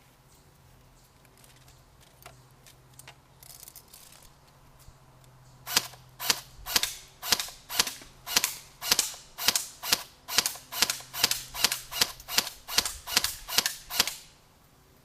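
A regular run of sharp, loud clicks, about two a second for some eight seconds, starting about six seconds in, over a low steady hum. A few faint clicks come before it.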